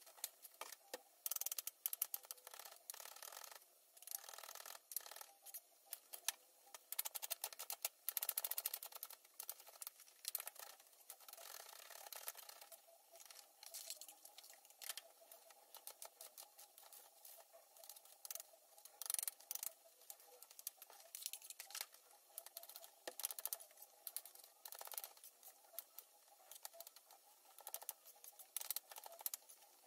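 Kitchen knife dicing tomatoes, onion and garlic on a cutting board: a faint, irregular run of light taps and clicks.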